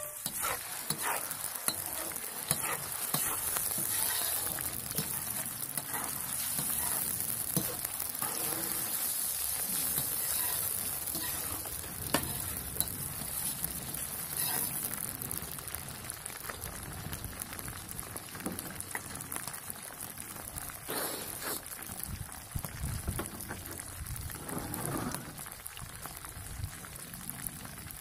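Chunks of raw meat frying and sizzling in hot oil in a plov kazan, with occasional scrapes of stirring. The sizzle is loudest early on and eases somewhat in the second half as the meat begins to brown.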